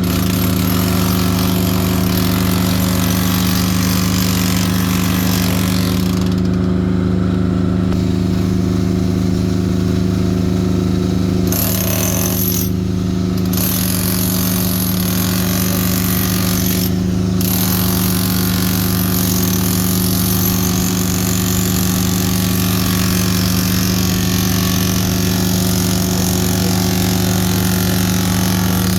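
Concrete drilling and cutting machinery running: a steady motor hum under the rough, grinding noise of the tool working into concrete. The grinding eases off for a while and drops out briefly twice.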